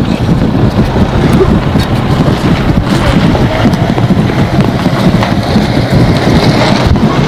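Wind buffeting the microphone: a loud, steady rumble with constant gusty fluctuations.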